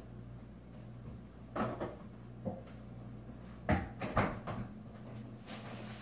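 Several short household knocks and clatters, like cupboard doors or objects being handled, the loudest two close together nearly four seconds in, over a steady low hum.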